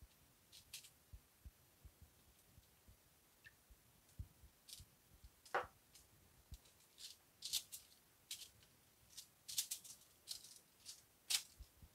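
Faint, irregular crinkling and soft tapping of aluminum foil as a silicone pastry brush works over raw tilapia fillets on a foil-lined baking sheet.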